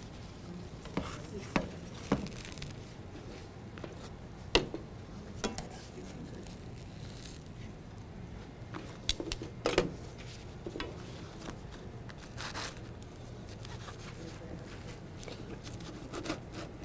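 Metal kitchen tongs and utensils clicking and knocking against skillets and a cutting board in scattered sharp strikes, with a small cluster a little under halfway, over a steady low room hum.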